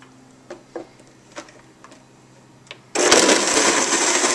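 A few light clicks as the lid is fitted onto a Blendtec blender jar, then about three seconds in the blender starts abruptly and runs loud on its smoothie cycle, blending ice into hot soy milk.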